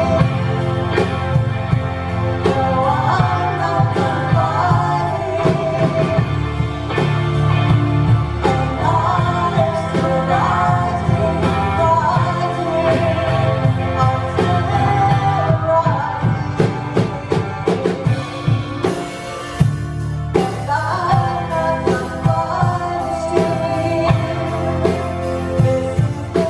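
A woman singing a song live with a band backing her, bass and drum kit under the voice. About two-thirds through the voice pauses for a few seconds while the drums carry on, then the singing comes back.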